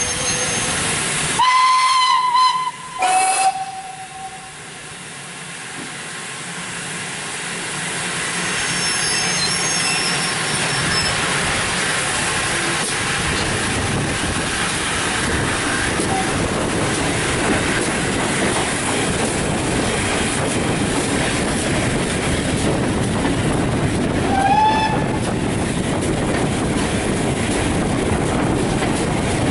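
Steam locomotive whistle: one blast of about a second, then a shorter, lower blast, followed by a steady hiss that builds over several seconds and holds. A brief third whistle sounds late on.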